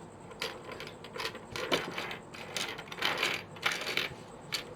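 Loose plastic pieces of a disassembled 5x5 puzzle cube clicking and clattering as they are sorted through and handled, in a string of short, uneven clicks with a denser rattle about three seconds in.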